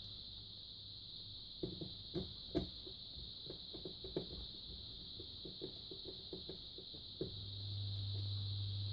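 A run of small clicks and knocks, at times three or four a second, from hands and a screwdriver working on the opened LED TV while it is put back together. A steady low hum comes in near the end.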